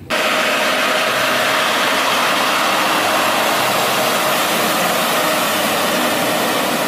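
A Kenworth semi-truck's diesel engine running as the truck drives through floodwater, with a steady rush of spraying water. It cuts in suddenly.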